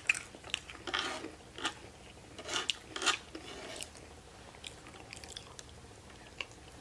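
Close-up chewing and biting of food, with wet mouth clicks and smacks, most of them in the first three or four seconds and then fainter.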